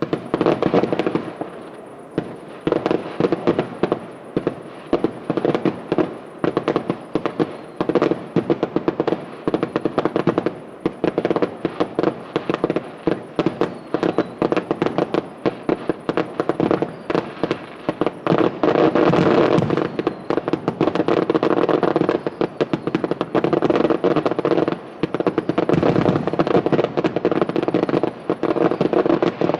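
Fireworks display finale: a rapid, continuous barrage of shell bursts and bangs, densest about two-thirds of the way through.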